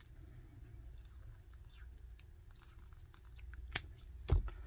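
Faint handling of two cylindrical battery cells being held and pressed together, over a low steady hum, with a few small clicks and two sharper clicks near the end.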